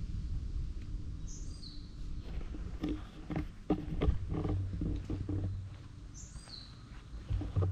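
Cat purring as it is stroked, a low steady rumble that grows stronger past the middle, with a few soft knocks of handling. A bird gives a short falling call twice, about one and a half seconds in and again near six and a half seconds.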